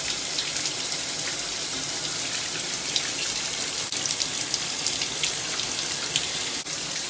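Shower running: a steady spray of water pouring and splashing.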